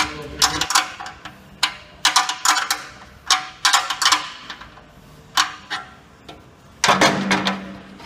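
Spanner working bolts on a swingblade sawmill's steel carriage: short bursts of sharp metal clicks and clinks, with a ringing clang about seven seconds in.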